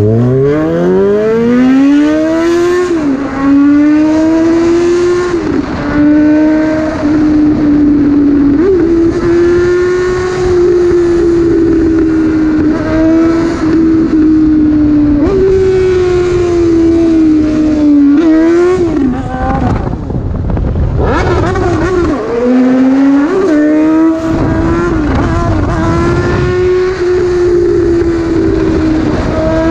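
Suzuki Bandit 650N's inline-four engine at full throttle from the rider's seat. It revs up steeply in the first few seconds, then holds a high, steady drone at highway speed, its pitch dipping briefly at several gear changes. About two-thirds of the way through it backs off and then pulls up again. Wind rush on the microphone runs underneath.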